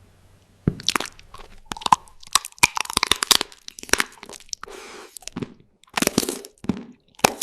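Crunchy food being bitten and chewed close to the microphone, mukbang-style: clusters of loud, crisp crunches beginning just under a second in, after a quiet start.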